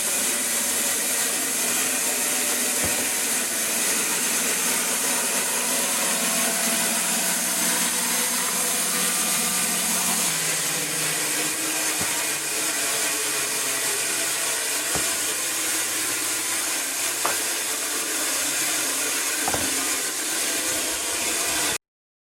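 LDA-300 band resaw running, a steady mechanical noise whose hum drops slightly in pitch about halfway through, with a few light knocks. The sound cuts off abruptly near the end.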